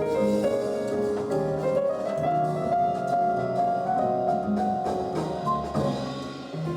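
Jazz piano playing an instrumental passage, with light percussion, reproduced over TAD Compact Evolution One TX hi-fi loudspeakers in the room.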